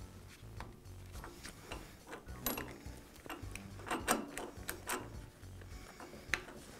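Irregular metallic clicks and knocks from a drill press's quill-return coil spring housing and a screwdriver as the housing is turned by hand to add spring tension. The clicks come thickest in the middle, loudest about two and a half and four seconds in.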